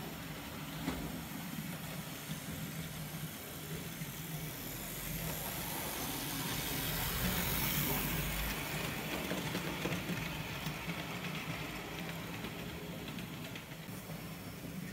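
OO gauge model train running along the track: a steady motor hum with the rumble of wheels on rail. It grows louder towards the middle as the container wagons pass close by, then eases off.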